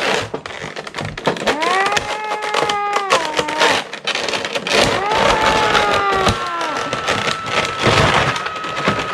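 Plastic toy packaging crackling and crinkling as a figure's box and tray are pulled open, with a child's voice held in two long drawn-out strained sounds.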